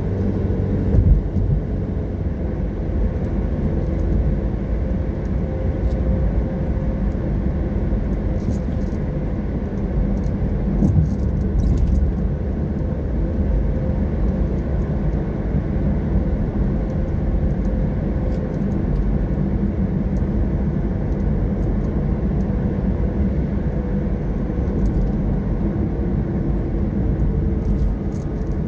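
Car driving along a road, heard from inside the cabin: a steady low rumble of engine and tyres with a constant hum. There is a light bump about a second in and another about eleven seconds in.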